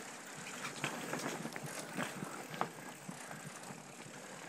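Mountain bike rolling over sandstone slickrock: a steady rush of tyres and air, with the bike clattering sharply over bumps several times.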